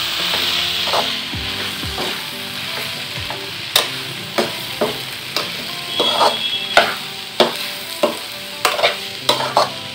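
Mixed vegetables frying and sizzling in oil in an aluminium kadai while being stirred with a metal slotted spatula. From about four seconds in, the spatula repeatedly clicks and scrapes against the pan.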